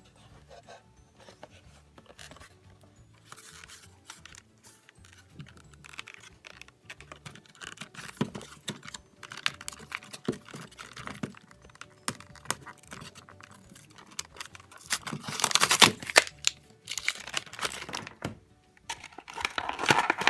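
Hands opening toy packaging: crinkling plastic and cardboard, with many small clicks and scratches and bouts of tearing, loudest about fifteen seconds in and again near the end.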